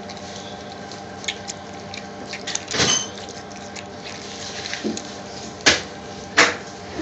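Metal spoon clinking and knocking against a ceramic mixing bowl several times, one clink ringing briefly about three seconds in and two sharper knocks near the end, over a steady low kitchen hum.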